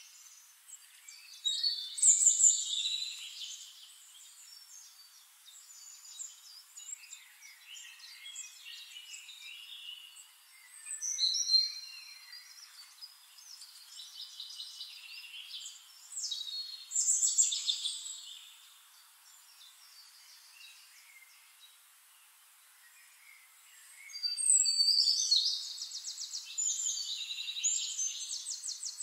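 Birds chirping and trilling in high-pitched bursts, loudest about two seconds in, around eleven and seventeen seconds, and in a longer run of rapid chatter near the end, with quieter twittering between.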